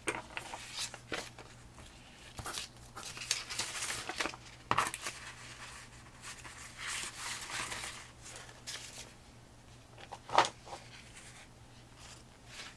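Sheets of painted book paper rustling and sliding as they are laid down one after another on a tabletop, in brief irregular rustles, with one sharper paper sound about ten seconds in.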